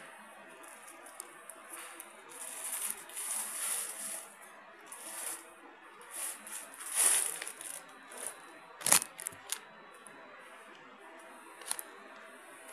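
Rustling and crinkling of a roll of glossy printed self-adhesive labels being handled and turned, in irregular bursts, with a sharp click about nine seconds in.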